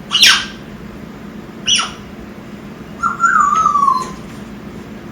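Young African grey parrot calling: two short, sharp squawks, then about three seconds in a longer whistle that falls in pitch.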